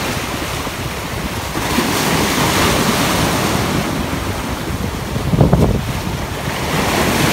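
Small sea waves breaking and washing up a sandy shore, with wind buffeting the microphone; a louder rush about five seconds in.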